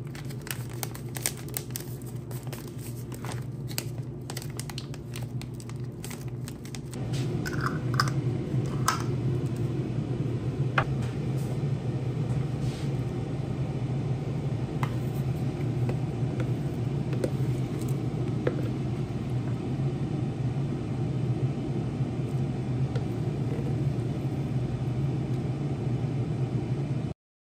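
A kitchen appliance running with a steady low hum that jumps louder about seven seconds in, with a couple of short beeps soon after. Before that, scattered clicks and knocks from food packaging and dishes being handled on the counter.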